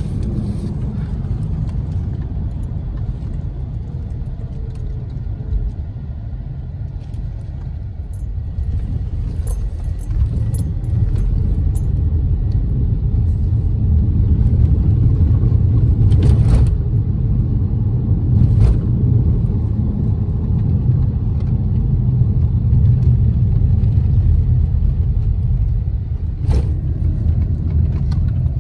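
Steady low rumble of a car driving, heard from inside the cabin: engine and road noise, growing louder about ten seconds in as it picks up speed. A few short clicks or knocks sound in the second half.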